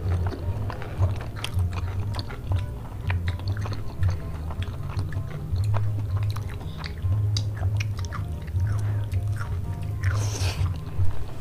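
Close-miked eating sounds: moist chewing, lip smacks and small clicks of the mouth. A low hum comes and goes underneath. A short breathy slurp is heard about ten seconds in, as a grilled meatball is bitten off a skewer.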